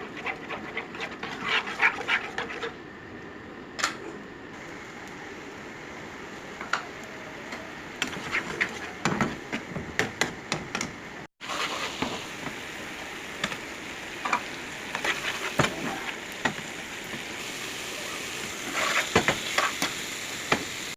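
Dragon chicken being stir-fried in a pan: a steady sizzle with frequent clicks and scrapes of a spatula against the pan. The sound cuts out for a moment about halfway.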